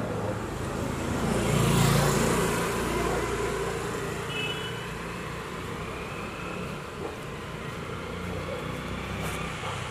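Street traffic, with a motor vehicle passing close by: its engine and tyre noise swell to a peak about two seconds in and then fade back into the steady traffic hum.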